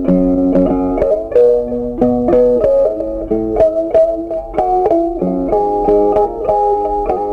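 Background music: a plucked guitar playing a melody over chords, with a new note every fraction of a second.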